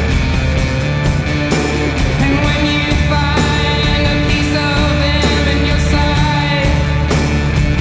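Background rock music with singing over a steady drum beat.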